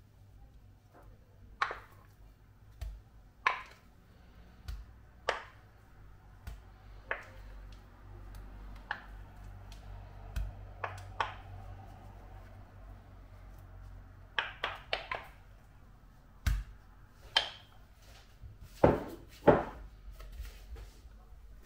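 Irregular light knocks and clicks of kitchen work: utensils, dishes and a baking tray being handled, with a quick run of four taps about two-thirds of the way through and two louder knocks near the end.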